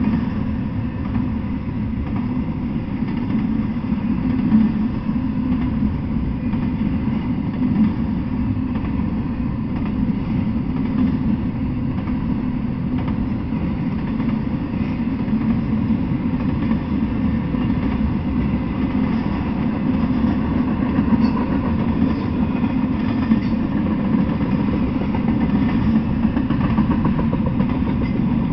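Double-stack intermodal freight train rolling steadily past: a continuous low rumble of steel wheels on rail, with no locomotive in the picture, heard through a trail camera's small microphone.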